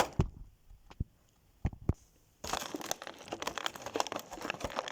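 Plastic packaging being handled and crinkled as an action figure is pulled out of its box: a few separate clicks and knocks, then from about halfway a dense, continuous crackle.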